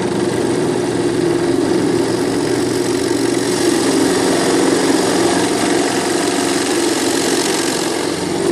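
Skil 3320 benchtop drill press running, its motor giving a steady hum while the bit cuts into wood with a steady hiss.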